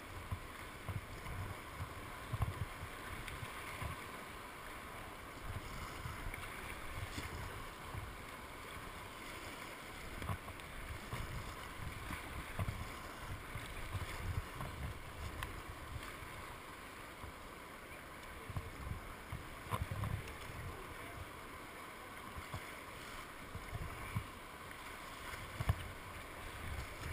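White water rushing around a kayak running an artificial rapids course, with the splash of paddle strokes and irregular low thumps as the boat is buffeted.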